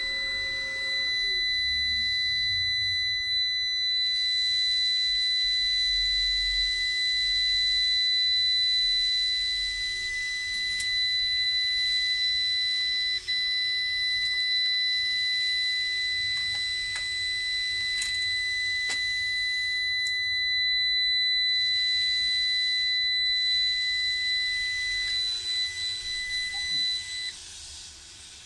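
Solar inverter's fault alarm buzzer sounding one continuous high-pitched tone, the sign of its fault state (codes 09, bus soft start failed, and 08, bus voltage too high). A low hum slides down in pitch in the first couple of seconds, and the alarm tone cuts off suddenly near the end.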